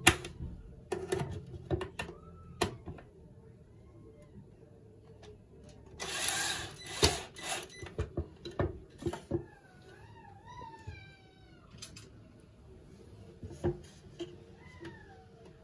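Cordless drill driving screws through a metal shelf bracket into a wooden board: sharp clicks and knocks, with one longer run of the drill about six seconds in. A few high, wavering cries come in around ten seconds and again near the end.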